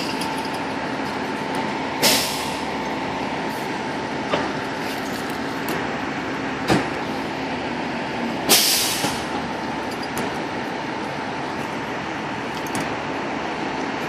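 Fire truck's diesel engine idling steadily in the open firehouse bay, with two short, sharp hisses of released air (the louder one about eight and a half seconds in) and a single knock in between.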